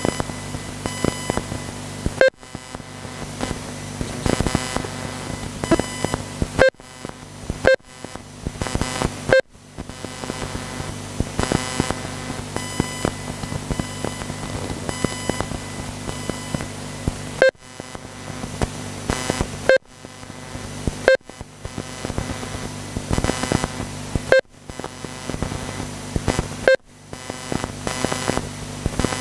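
RC race lap-timing system giving a short beep each time a car crosses the timing line, about nine beeps at uneven intervals over a steady electrical hum.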